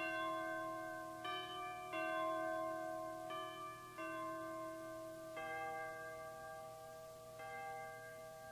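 Instrumental hymn music played in bell-like chime tones: a slow melody of struck notes, a new note or chord about every second or two, each left ringing and fading.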